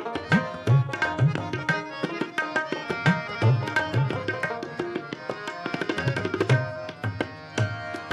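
Tabla and harmonium playing an instrumental interlude of Sikh shabad kirtan. Quick crisp tabla strokes are mixed with deep bass strokes from the bayan, over held harmonium notes.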